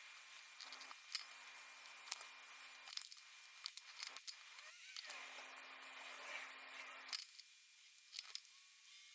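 Small clicks, taps and rustling from handling a compact digital camera and its parts during a lens repair, with two stretches of a faint steady hum under a hiss that start and stop abruptly.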